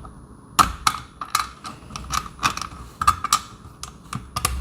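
A screw being driven by hand into a doorbell mount: a run of irregular sharp clicks and scrapes, about two or three a second.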